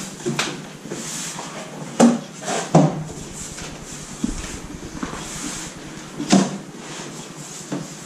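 Large cardboard bicycle box being opened and handled: cardboard flaps rustling and scraping, with several sharp knocks, the loudest about two, three and six seconds in.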